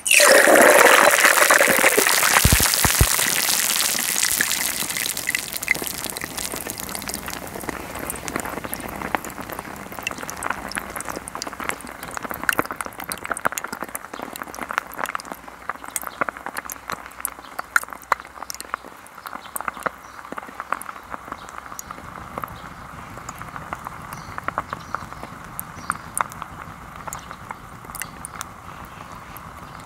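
Chicken wing deep-frying in hot oil in a glass: a loud sizzle as it goes into the oil, settling gradually into a quieter fizzing with scattered sharp pops and crackles as it cooks.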